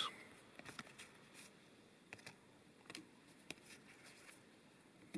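Faint, scattered soft clicks and rustles of Magic: The Gathering cards being handled and flipped through by hand.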